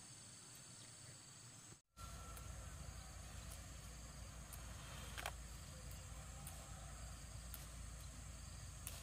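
Crickets trilling steadily as a high thin background, cut off abruptly about two seconds in, after which a low steady rumble with a few faint clicks takes over.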